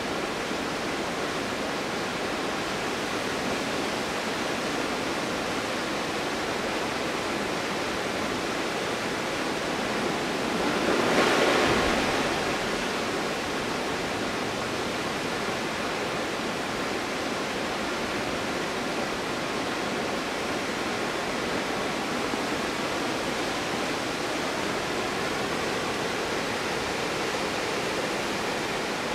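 The Stuibenfall waterfall in winter makes a steady, dense rush of falling water. About eleven seconds in there is a brief swell where it grows louder, then it settles back.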